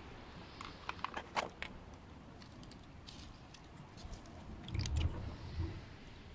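Handling noise from fishing line and an octopus lure being worked close to the camera: a quick cluster of sharp clicks and light knocks about a second in, a few more scattered clicks, then a low muffled rumble near the end.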